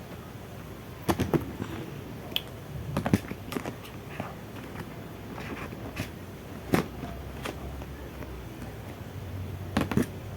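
Plastic markers clicking and clacking as they are gathered up and packed away: a dozen or so short, sharp knocks at irregular intervals, some in quick clusters.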